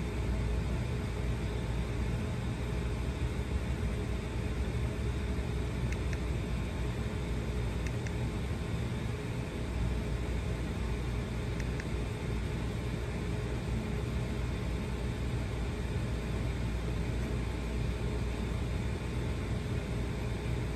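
Honda Gold Wing flat-six engine idling with a steady low hum.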